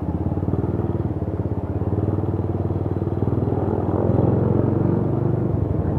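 Motorcycle engine running at low speed as the bike rolls slowly, a steady rapid putter that swells a little about four seconds in.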